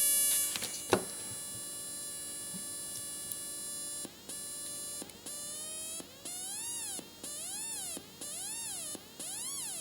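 Homemade multivibrator sound generator buzzing through a small speaker as a mosquito-squeak effect. A steady high buzz starts to swoop up and down in pitch about four seconds in, rising and falling about once a second with brief breaks between the swoops.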